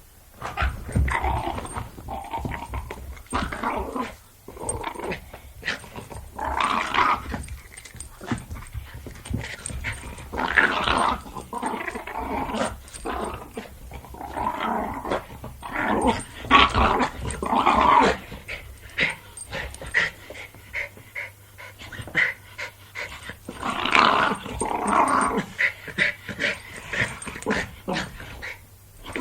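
Jack Russell Terrier growling while playing, in irregular bursts a second or two long with short breaks between.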